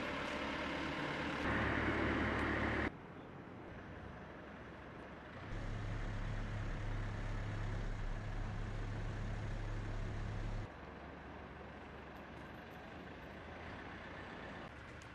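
Aircraft tow tractor engine running with a steady low hum, in stretches that cut in and out abruptly, with quieter vehicle noise between.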